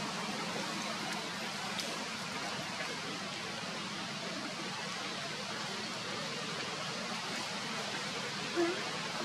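Steady, even background hiss, with one brief low-pitched sound a little before the end.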